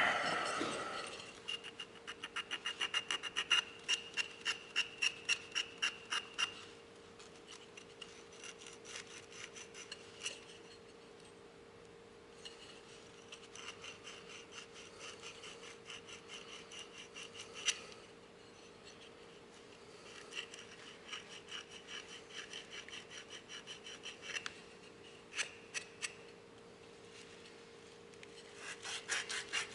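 Sandpaper rubbed by hand over a part of a dismantled car horn, in quick back-and-forth strokes about three a second, in several runs with short pauses between. A faint steady hum sits underneath.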